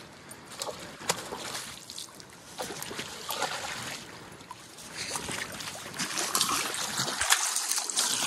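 Hooked coho salmon splashing and thrashing at the surface of shallow river water, over the steady rush of the river; the splashing grows louder in the second half.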